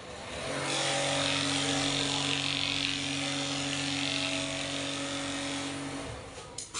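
Juki industrial sewing machine running at a steady speed, a constant motor hum with a hiss above it. It starts about half a second in and stops shortly before the end.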